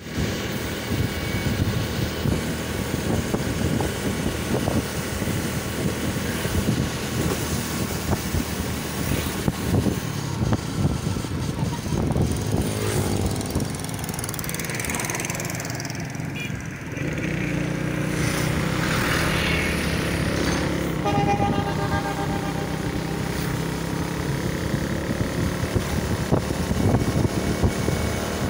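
Motorcycle riding along a road at speed: steady engine and road noise with wind rushing over the microphone. A clearer humming engine tone comes through for a few seconds past the middle.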